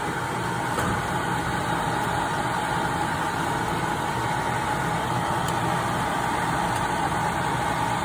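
Agricultural produce dryer running, a steady machine hum from its blower with a faint steady whine.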